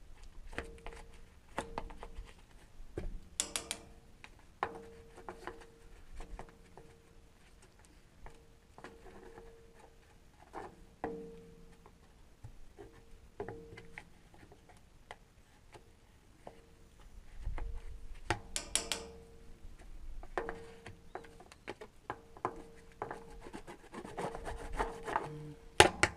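Bondo body filler being mixed and scraped with a spreader: irregular rubbing and scraping strokes with scattered clicks and knocks, and two sharper scrapes, one early and one past the middle.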